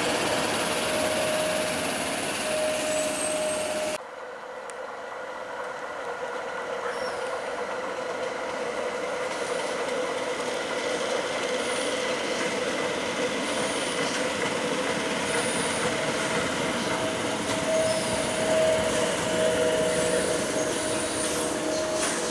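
A Tyne and Wear Metrocar (Class 994) running past on the track. After a sudden cut about four seconds in, another Metrocar approaches and pulls into the platform. Its sound grows steadily louder, with a thin steady whine over the rail noise.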